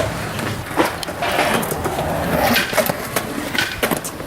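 Skateboard wheels rolling over pavement in a steady rumble, with several sharp clicks, during a hang five attempt with the board riding on its nose.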